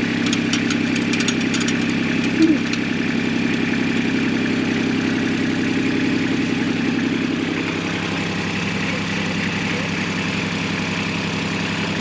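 An engine running steadily at idle; its hum settles a little lower about eight seconds in. Light metallic clicks over the first few seconds, with one brief louder knock, as an irrigation sprinkler riser is worked loose from its pipe fitting.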